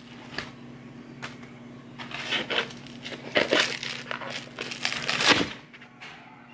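Plastic wrapping crinkling and rustling as it is pulled off a block of frozen ground meat, ending in a thump about five seconds in as the frozen block drops into the pot. A faint steady low hum runs underneath.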